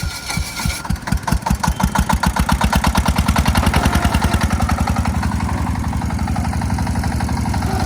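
Single-cylinder diesel engine of a công nông farm cart starting up. Separate firing beats quicken over the first few seconds, then settle into a steady, fast running beat.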